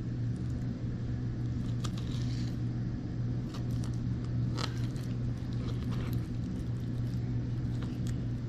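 Fillet knife cutting the pin bones out of a sheepshead fillet: scattered small clicks and scrapes of the blade and fish on the cutting board, over a steady low hum.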